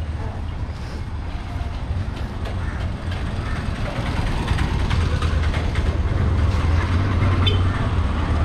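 Street traffic: vehicle engines running, louder from about four seconds in as traffic passes close by.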